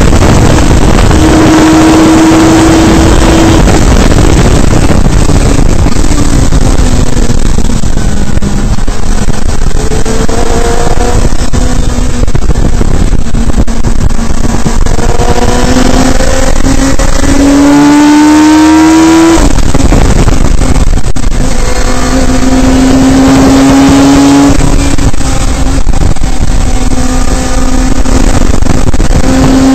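Radical SR3 race car's motorcycle-derived four-cylinder engine at racing speed, heard from the open cockpit: the engine note climbs with the revs, drops sharply at each upshift, and falls away under braking. A steady rush of wind and road noise runs underneath.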